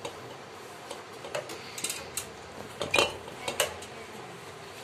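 Refrigerator compressor being handled and set onto its mounts in the fridge body: a handful of sharp metallic clinks and knocks, the loudest about three seconds in.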